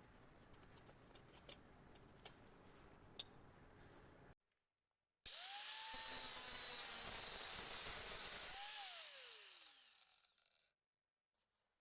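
Faint handling clicks, then a handheld electric power tool starts up with a rising whine and runs against metal with a loud, hissing grind. Near the end it is switched off, and its whine falls away as it winds down to silence.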